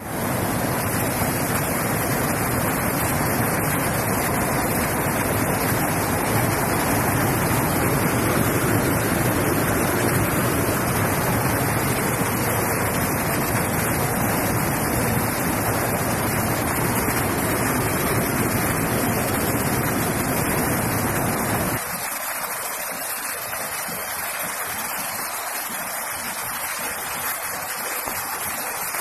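Heavy rainwater runoff pouring and splashing in a loud, steady rush. About 22 seconds in, the deep part of the noise drops away, leaving a thinner hiss of falling and running water.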